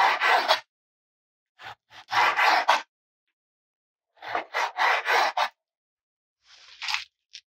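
Repeated short scraping strokes in several clusters, with stretches of dead silence between them.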